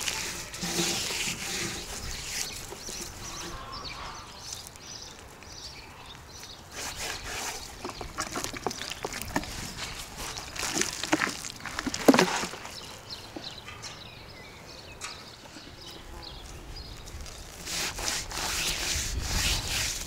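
Hands rubbing coarse salt into the scaly skin of a large whole fish, an uneven gritty rubbing in irregular strokes, with one louder knock about twelve seconds in.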